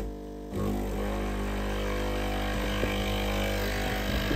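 Ulka EP5 vibration pump in an espresso machine switching on about half a second in and then running with a steady hum, pumping water to the group head: with its new O-ring fitted it builds pressure and water flows.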